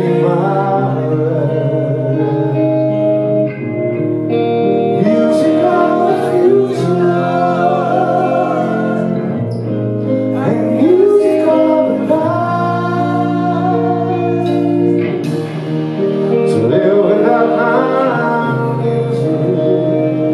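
Rock band playing live: a man singing lead over electric guitar, keyboards and drums.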